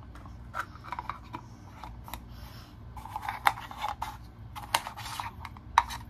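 Pink plastic lid of a portable mini blender handled close to the microphone: irregular small clicks, scrapes and rubbing as the lid and its rubber seal are worked by hand.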